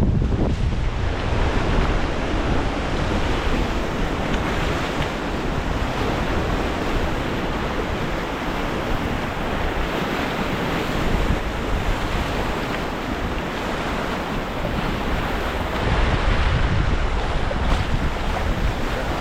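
White water rushing through river rapids, with wind buffeting the microphone.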